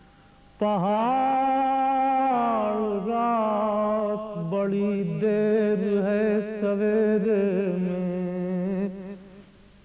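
A man's unaccompanied voice chanting a line of an Urdu salam in a slow, melodic recitation, with long held notes that waver and bend in pitch. It begins about half a second in and trails off near the end.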